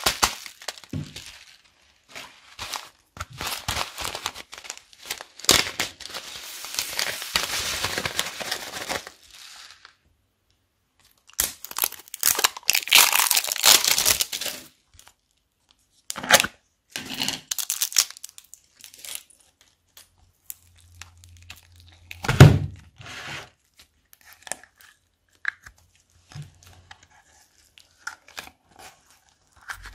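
Plastic bag of foam beads crinkling as the beads pour and rustle into a plastic bowl, in a long stretch at the start and a second one a few seconds later. After that come scattered light clicks and a single heavy thump about two-thirds of the way through.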